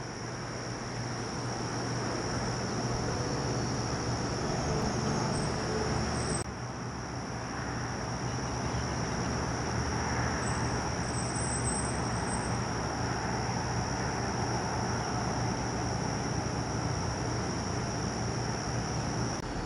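Steady chirring of crickets or other insects over the low, steady drone of a diesel locomotive's engine as it moves slowly through the yard. Everything drops abruptly for a moment about six seconds in.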